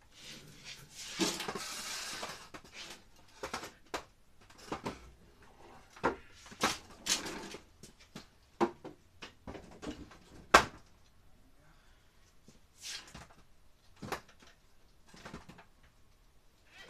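Short lengths of wooden board being handled and stacked: a scrape about a second in, then scattered knocks and clunks of wood on wood, the loudest about ten seconds in.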